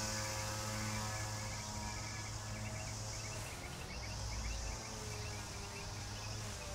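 Lawn mower engine running steadily with a constant hum.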